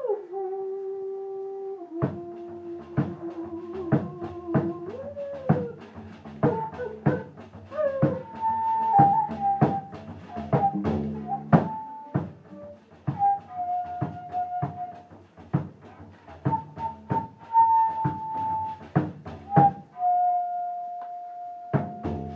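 Music: a slow flute-like melody of held and sliding notes over a low drone, with quick percussive taps from about two seconds in. Near the end the taps stop and a single note is held.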